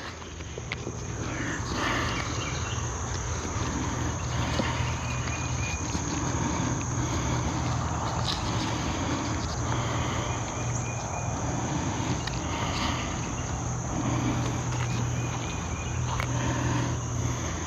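Steady high-pitched chorus of insects, with a few faint clicks and knocks of metal tree steps being slid along a strap.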